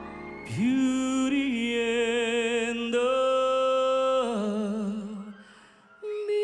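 Male singer holding one long sung note over soft backing music, sliding up into it about half a second in and ending with a wide vibrato that fades out about five seconds in. A new steady held note comes in near the end.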